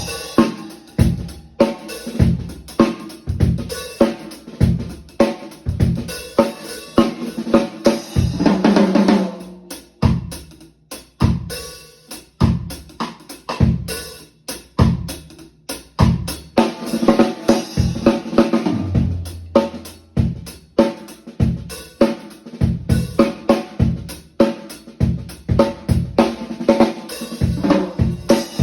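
Acoustic drum kit played as heard in the room without close microphones: a steady groove of kick, snare, hi-hat and cymbals. A dense fill of quick strokes comes about a third of the way in.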